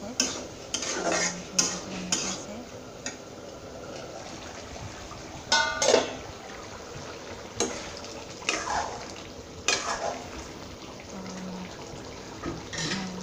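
A metal spatula scrapes and clinks against a wok while food is stirred. Just before six seconds in, a stainless steel lid clanks onto the pan with a brief metallic ring. More scattered scrapes and knocks of metal on the pan follow.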